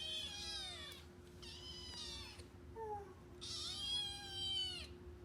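Young foster kittens meowing: three long, high-pitched mews, one after another, each falling in pitch at its end.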